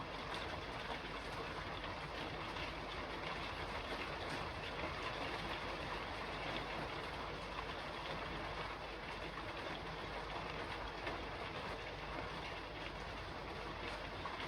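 Steady rain falling on a roof, an even hiss of many small drops with no let-up.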